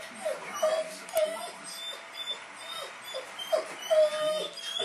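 Rottweiler whining in a string of short whines, several falling in pitch, with a longer, louder one about four seconds in.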